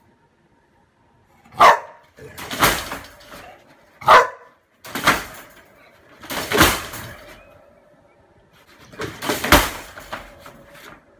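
A dog in a wire crate gives two short barks in the first few seconds, and scratches and digs at its cushioned bed in four noisy bursts.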